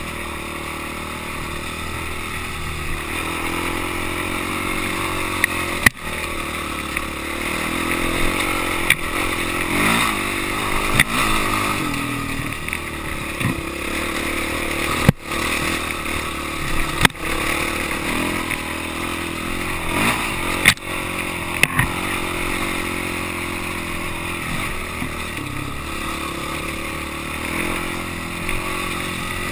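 Off-road dirt bike engine running under load on a steady uphill climb, its pitch rising and falling as the throttle changes. Several sharp knocks stand out as the bike jolts over the rough trail.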